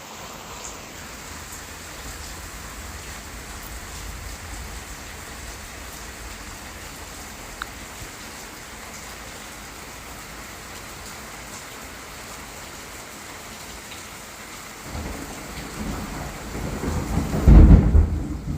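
Steady rain falling in a thunderstorm. About fifteen seconds in, a deep rumble of thunder builds and is loudest near the end.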